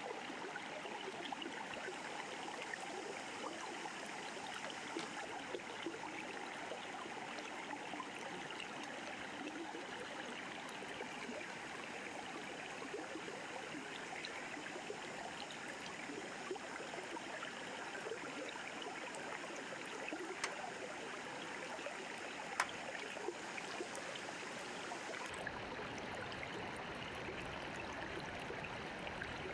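River water flowing: a steady rushing and babbling. A few light clicks sit on top, and a deeper low rumble comes in near the end.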